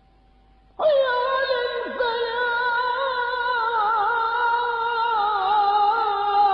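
An old recording of a muezzin chanting the adhan, the Islamic call to prayer: his voice comes in about a second in and holds one long, ornamented note that wavers in small turns of pitch.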